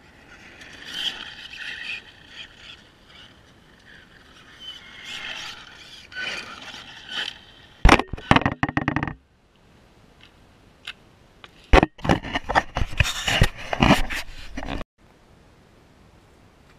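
GoPro camera housing rubbing and scraping against grass and dirt, with scratchy rustling, then two loud clusters of knocks and scrapes as the camera is moved and set upright. The sound cuts off abruptly near the end.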